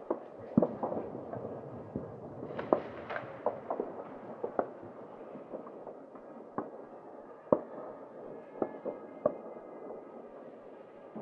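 New Year's Eve fireworks and firecrackers going off across a city: more than a dozen sharp bangs at irregular intervals over a continuous rumble of many more bangs further off.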